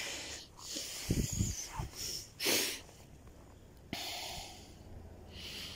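A person breathing close to the microphone: a few short, hissing exhales at irregular intervals, with some low thumps of wind or handling on the mic about a second in.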